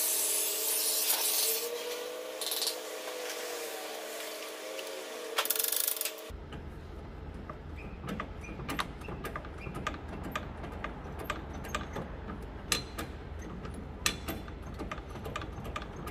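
Oxy-acetylene torch hissing as it heats a seized mechanical tractor brake. About six seconds in the sound changes suddenly to a low rumble with scattered light metal clicks and taps.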